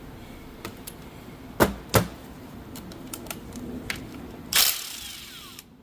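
Hand tools on the bolts and case of a manual transmission: scattered metallic clicks, two sharp knocks about a second and a half and two seconds in, and about a second of rasping rattle near the end.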